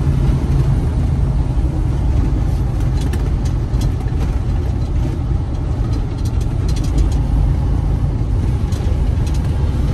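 Semi truck's diesel engine and road noise droning steadily inside the cab while cruising on the highway.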